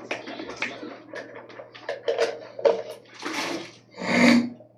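A man spluttering and coughing with a mouthful of something foamy, in a run of irregular noisy bursts; the two loudest come near the end, the last with a strained, voiced edge.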